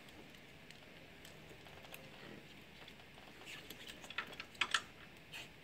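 Wrench working an alternator mounting bolt by hand: mostly quiet, then a cluster of short, sharp metallic clicks between about three and a half and five seconds in.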